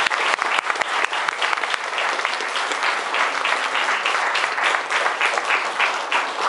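Audience applauding: many people clapping steadily in a dense, even patter.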